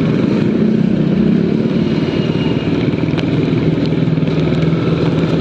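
Motorcycle riding in slow traffic: a steady engine drone mixed with the rush of air and tyres on a wet road, with other motorbikes running close by.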